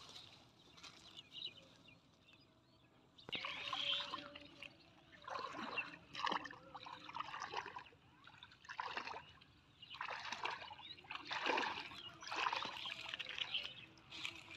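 Shallow water sloshing and splashing as people wade through it dragging a fine-mesh net, in irregular bursts about once a second after a quiet first three seconds.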